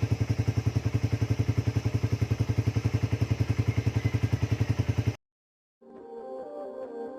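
Suzuki Raider 150 carb's two-stroke single-cylinder engine idling through an aftermarket Apido 'chicken pipe' exhaust, a steady, even, rapid pulsing. It cuts off abruptly about five seconds in, and soft background music begins.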